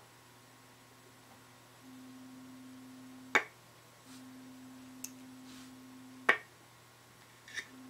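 Stethoscope test fixture playing its faint, steady low test tone in stretches of one to two seconds, each cut off by a sharp click; two loud clicks and a few lighter ones, over a constant low electrical hum.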